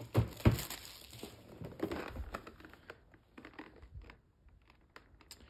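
Cardboard figure box being handled: two sharp knocks right at the start, then rustling of cardboard and the plastic window, thinning to a few faint clicks.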